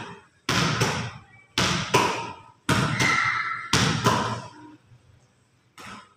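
A netball is thrown against a concrete wall and caught, four times about a second apart. Each throw makes a pair of sharp smacks, the ball hitting the wall and then landing in the hands, with an echo off the bare concrete. A fainter single knock comes near the end.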